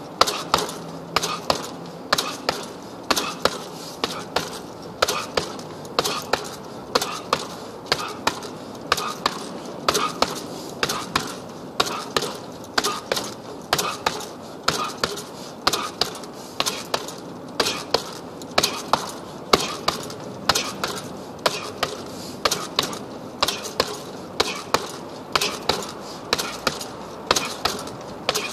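Heavy punching bag being hit with a steady flurry of punches, a sharp smack roughly two to three times a second.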